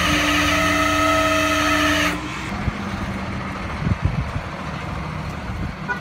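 Flatbed tow truck running close by, a loud steady drone with a whine in it. About two seconds in it cuts off abruptly to the quieter sound of the tow truck driving away.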